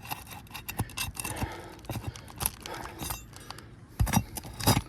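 Roofing nail being pried out from under a roof shingle with a metal tool: scraping and small metal clinks, with two louder knocks near the end.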